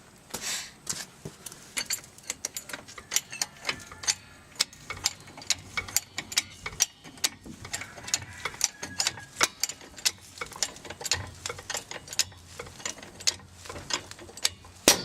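A hydraulic jack being pumped to lift a 1988 Suzuki Samurai: a steady run of sharp mechanical clicks and knocks, a few a second, from the handle strokes. A single louder knock comes near the end, which sounds wrong to the person working.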